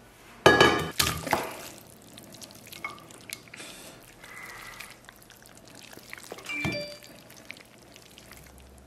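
Stainless steel pan and its lid clanking on a wooden table, with one loud ringing clank about half a second in and a few lighter clinks after it. Softer handling sounds follow, then a single short ringing metal clink near the end.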